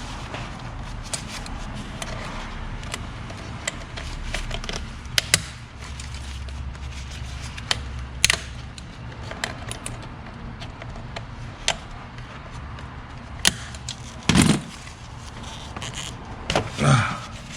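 Scattered clicks and knocks of hand tools and car parts being handled, over a steady low hum, with a louder thud about three seconds before the end.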